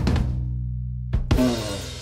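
Background music with a drum kit that breaks off, then one final drum and cymbal hit about a second in that rings out and slowly fades.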